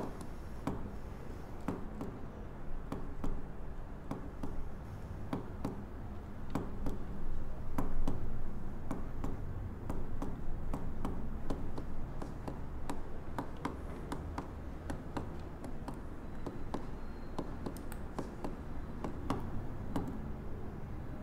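Office work sounds: irregular taps and clicks of a computer keyboard being typed on, and a pen writing on paper, over a low steady background hum.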